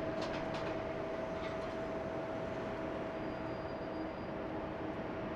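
Jet engines of a four-engine Boeing 747-400 heard from a distance as a steady rush of noise, with a steady hum beneath it, as the airliner rolls out after landing.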